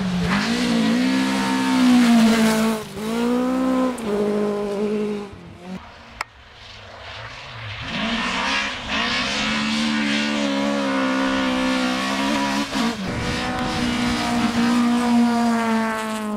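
Toyota Corolla GT AE86 rally car's engine revving hard through the gears, its pitch climbing and dropping at each shift. The sound dies away for a couple of seconds about five seconds in, then another long flat-out run follows.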